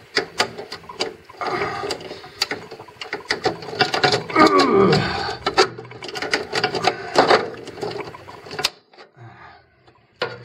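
Side cutters nipping and clicking on metal fittings inside a steel switch-fuse cabinet, cutting a slot to stop eddy currents. It is a quick run of sharp clicks and scrapes, dying away near the end.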